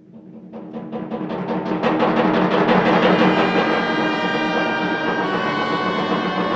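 Theatre pit orchestra swelling from quiet to loud. Rapid, evenly repeated drum strokes build in a crescendo over the first two seconds or so, then the full orchestra holds sustained chords.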